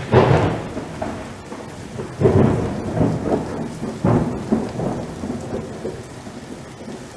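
Strong wind and rough sea heard from a ship's open deck: a steady rushing roar with three heavy surges about two seconds apart, the first and loudest right at the start.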